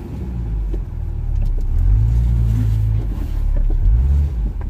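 Four-wheel-drive vehicle's engine pulling in low gear over a rough track, the revs rising about two seconds in and surging again near the end, with a few light knocks from the vehicle.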